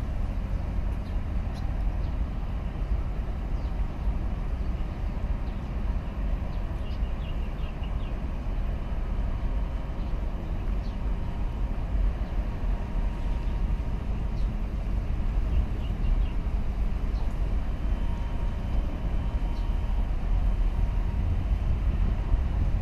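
Steady low rumble from a large container ship passing close to the shore, mixed with wind on the microphone. A faint steady hum and a few faint high chirps sit above it.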